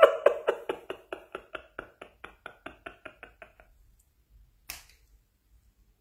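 A man laughing, a string of short even "ha" pulses about five a second that die away over three and a half seconds, followed by a single faint click.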